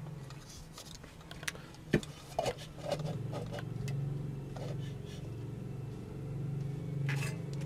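Light clicks and knocks of a plastic LED lamp housing being picked up and handled, over a steady low hum.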